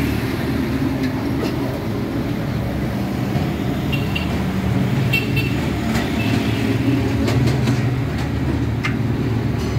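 A puri deep-frying in a large wok of hot oil over a gas burner: a steady low roar under the sizzle of the oil, with several light metallic clicks of the skimmer against the wok.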